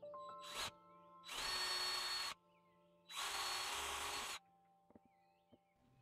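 Cordless drill run in two bursts of about a second each, after a short blip, with a steady high motor whine, its bit working into the inner wall of an old refrigerator.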